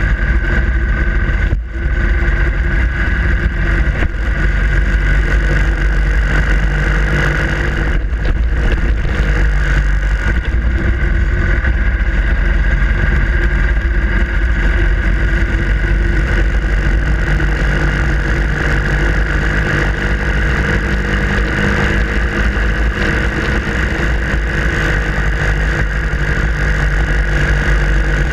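Harley-Davidson Sportster Iron 883's air-cooled V-twin engine running steadily while riding. The note dips briefly about two seconds in and again around eight seconds.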